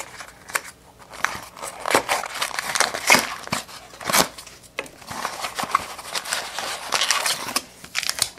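Packaging of a retail trading-card box being forced open by hand: irregular crinkling, tearing and sharp crackles of cardboard and plastic wrap.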